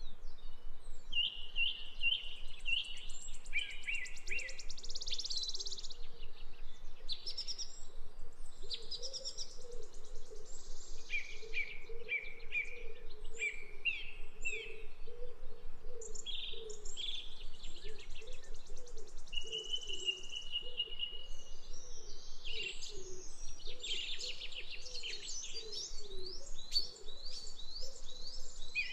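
Birds singing: a run of varied chirping phrases and rapid trills, one after another, through the whole stretch.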